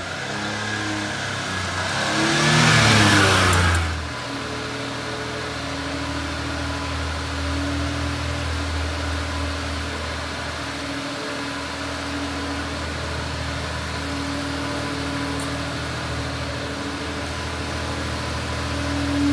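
1994 Suzuki Carry kei truck's small three-cylinder engine revving up and down with a loud rush of noise for the first few seconds. It then cuts abruptly to a steady idle.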